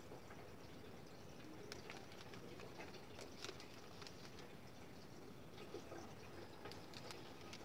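Faint handling noise of plastic light-up headphones being turned over in the hands: scattered small clicks and taps over a low hiss, in two loose clusters.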